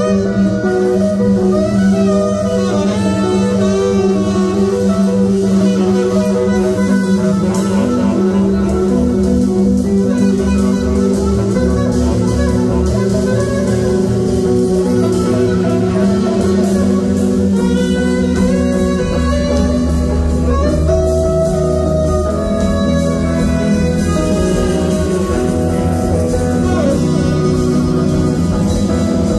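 A live band playing an instrumental piece on tenor saxophone, guitar, bass and drums, with held melody notes over a moving bass line.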